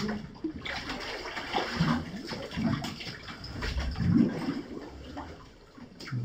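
Water sloshing and splashing in irregular surges as a caver moves through shallow water in a flooded cave passage.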